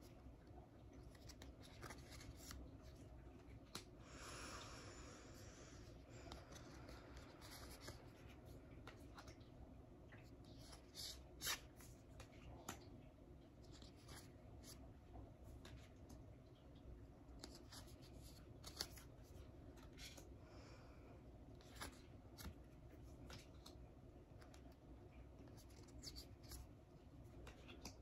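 Near silence with faint handling of oracle cards: soft slides and scattered light ticks as stiff cards are taken one by one from the front of the deck and moved to the back, with a short rustle about four seconds in.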